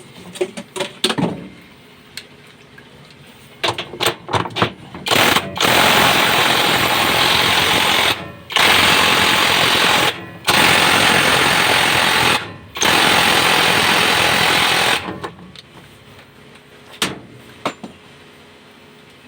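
Knocks and clatter, then a loud, steady rushing noise that runs in four spells of about two to three seconds each, broken by three short pauses, before it stops and a few light knocks follow.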